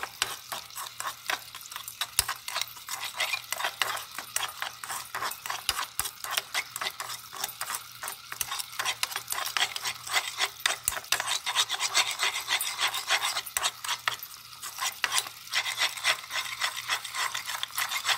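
Metal spoon stirring a gritty paste of sugar, turmeric and a little water in a cup, making quick continuous scraping strokes against the cup's sides, with a brief lull about three-quarters of the way through.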